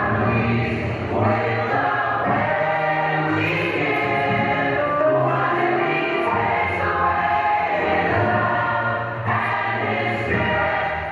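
A choir singing a gospel song, many voices holding long notes in harmony.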